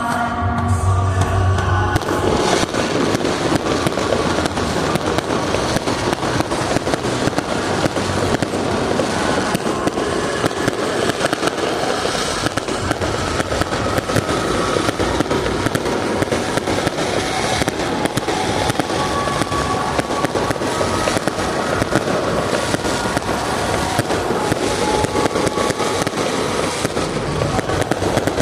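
Fireworks display going off in a dense, continuous barrage of crackling and popping, thickening about two seconds in.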